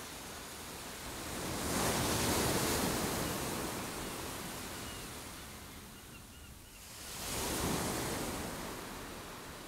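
Choppy sea water washing around a kayak, with wind, swelling in two surges, about two seconds in and again about seven and a half seconds in.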